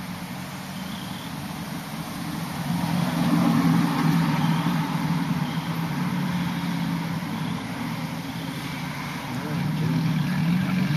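A car engine running with a steady low hum. It swells to its loudest about three to four seconds in and rises again near the end.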